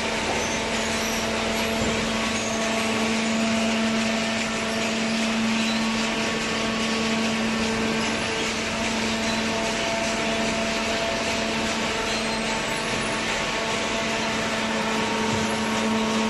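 Hydraulic cardboard baler running: a steady machine hum with a held low drone and an even whirring hiss, with no separate strokes or bangs.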